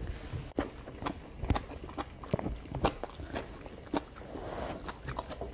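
A person chewing a mouthful of squid from a hot pot, with many small, irregular mouth clicks and crunches.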